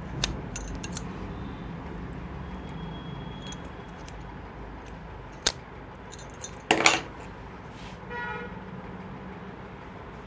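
Sharp metallic clicks and clinks of small metal tools being handled, scattered through, with the loudest cluster about seven seconds in. A short horn toot sounds about eight seconds in, over a steady low hum.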